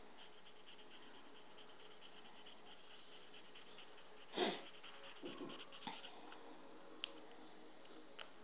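Felt-tip marker scribbling over a small piece of penne pasta, a faint, quick scratching of strokes as it is coloured all over. A brief louder rustle comes about four and a half seconds in, and a single sharp tick a little after seven seconds.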